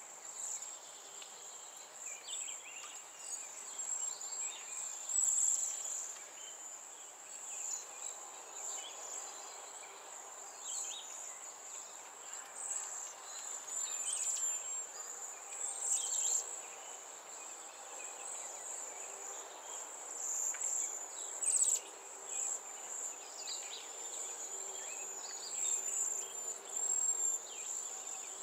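Steady high-pitched insect trill, with short bird chirps and calls scattered over it.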